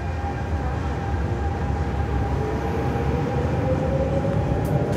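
RER A double-deck electric train pulling out of the station. Its traction motors give a whine that rises steadily in pitch from about halfway in, over a low rolling rumble that grows louder as the train picks up speed.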